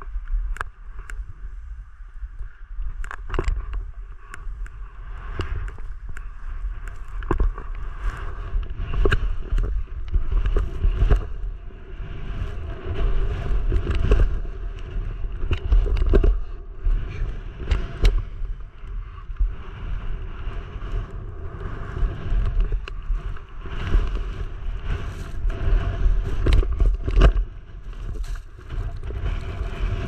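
Strong wind buffeting the microphone in an uneven, gusting rumble. Over it, skis scrape across wind-crusted snow, with frequent sharp clicks and knocks.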